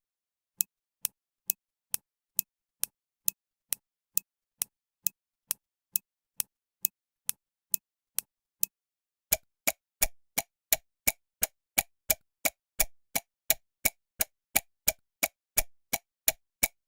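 Clock ticking at an even pace, about two ticks a second. About halfway through, the ticks turn louder and fuller and speed up slightly to nearly three a second: a fast-ticking clock as a sound effect for time passing quickly.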